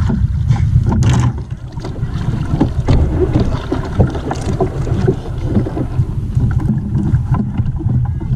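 Wind rumbling on the microphone of a small outrigger canoe at sea, over water lapping at the hull, with scattered small knocks and splashes.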